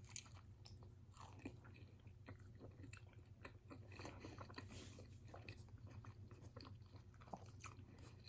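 Faint chewing of a chicken wrap, with small irregular clicks and crunches of the mouth over a low steady room hum.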